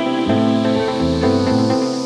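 Electronic background music: a repeating synth pattern with a steadily rising noise sweep over it.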